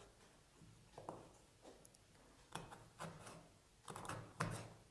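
Kitchen knife cutting through kohlrabi and knocking on a wooden cutting board: about half a dozen faint, irregular chops.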